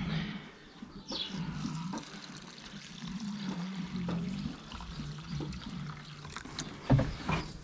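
Warm water poured from a container onto small feed pellets in a pan, making a mash, with a short knock about seven seconds in.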